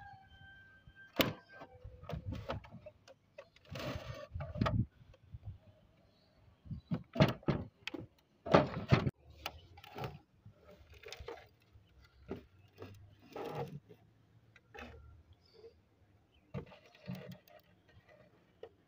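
A plastic sewing-machine case and machine being handled: irregular knocks, clunks and short scraping rubs as the parts are lifted, set down and turned over.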